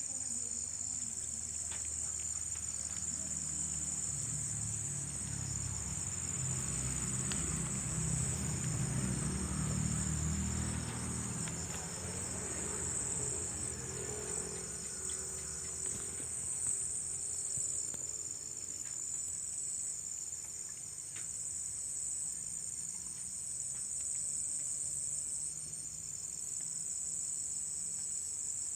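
A steady, high-pitched chorus of night insects singing without a break. During the first half there is also a low rumbling noise.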